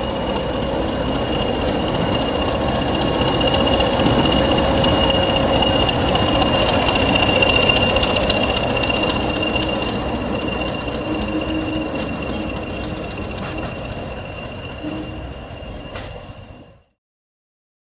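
English Electric Class 20 diesel locomotive passing close by at slow speed, its engine running with a steady high whistle; the sound swells as the locomotive draws level and fades as it moves away, then cuts off abruptly near the end.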